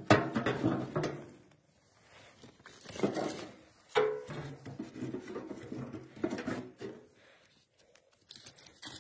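Split firewood being loaded into a small steel wood stove: a handful of wooden knocks and clatters as the pieces hit the firebox and each other, one about four seconds in with a short metallic ring.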